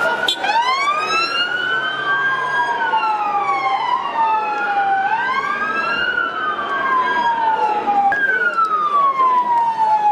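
Two police van sirens wailing out of step with each other, each sweeping slowly up and down in pitch; one restarts high about eight seconds in.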